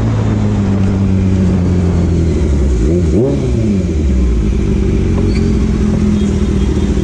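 Kawasaki Z900's inline-four engine running as the bike slows. The revs drop away at first, rise and fall sharply in a quick blip about three seconds in, then settle steady and low.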